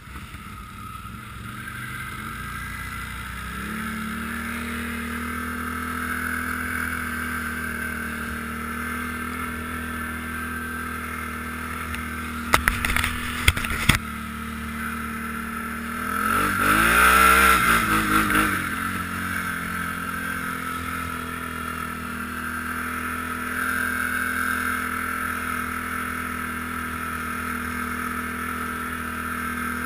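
ATV engine running steadily under load on a snowy trail, its pitch stepping up a few seconds in. A cluster of sharp knocks comes about halfway through, and a few seconds later the engine gets louder and its pitch rises and falls once.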